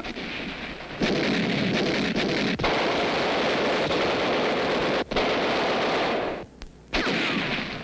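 Sustained rapid automatic gunfire, a dense unbroken crackle of shots. It comes in about a second in and breaks off briefly near the end before starting again.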